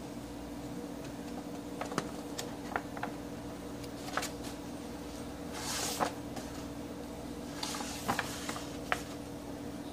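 Pages of a thick sketchbook being turned and handled: scattered light clicks and taps, and two short papery swishes about six and eight seconds in, over a steady low hum.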